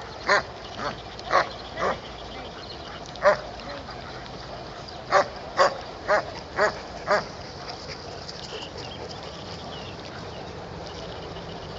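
A dog barking in short barks about half a second apart: four in quick succession, a single bark, then a run of five more, the last about seven seconds in.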